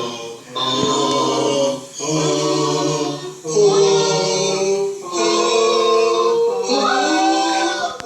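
Several voices singing together like a choir, holding sustained chords in phrases of about a second and a half with short breaks between them.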